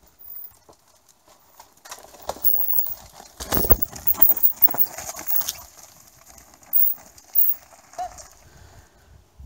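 Downhill mountain bike passing close by on a rough dirt and rock trail: tyres crunching and skittering over stones, with the chain and frame clattering. It is loudest around four seconds in, then a few sharp clacks follow as it rides away down the trail.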